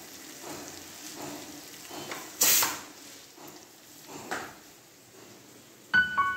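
Metal spatula stirring and scraping onion masala frying in a metal kadai, a faint stroke about every second, with one louder rush of noise about two and a half seconds in. Music starts at the very end.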